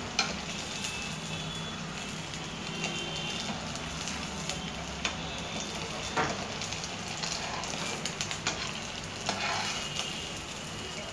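Sabudana vadas (tapioca-pearl and potato patties) sizzling steadily as they fry in hot oil in a kadai, cooking to golden brown. A perforated metal skimmer turns them, with a few light clicks against the pan.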